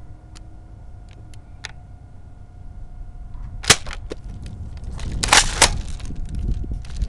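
Sharp snaps of airsoft gunfire: a single crack a little over three and a half seconds in, a weaker one just after, then a louder cluster of three shots over half a second around five seconds in.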